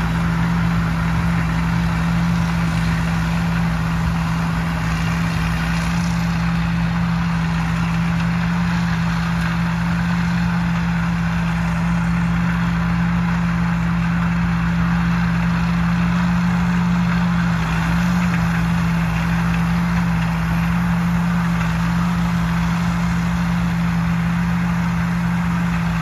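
Heavy engine running steadily at a constant speed: a deep, even drone that does not change.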